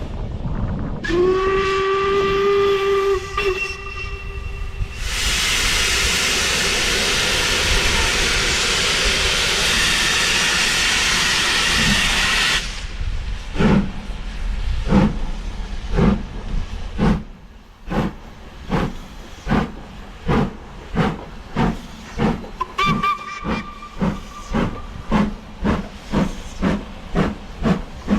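Steam locomotive whistle blowing for a few seconds, followed by a loud, steady hiss of escaping steam that cuts off. Then the locomotive's exhaust beats begin and quicken as it gets under way, with a second, shorter whistle blast midway through the beats.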